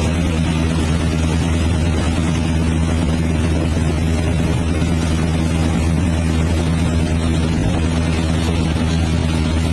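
A large engine running steadily, a constant low drone with a rushing noise over it.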